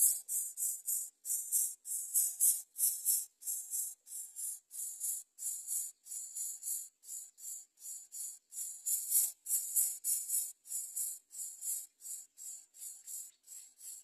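Greater coucal nestlings begging: a fast run of short, high, raspy hissing calls, about two or three a second.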